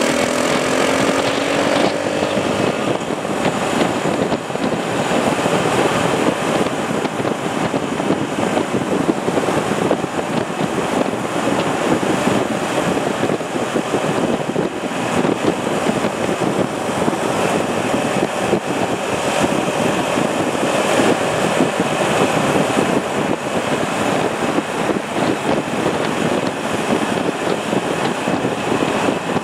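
Motorcycles riding at speed in a group: engine noise blended with steady wind rushing over the microphone of the riding bike.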